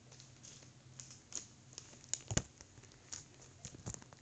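Clear plastic trading-card sleeves being handled and unfolded: light crinkling and rustling with scattered small clicks, the sharpest tap about two and a half seconds in and another near the end.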